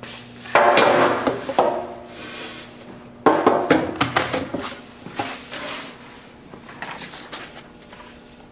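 Fine shredded circuit-board particle sliding and rattling inside a sheet-metal collection bin as the bin is handled and tilted, in two loud grainy rushes about half a second and about three seconds in, followed by smaller knocks and rustles.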